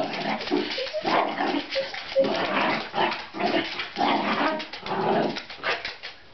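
Miniature dachshund barking and growling in a rapid string of bursts as it goes after a cat, dying down near the end.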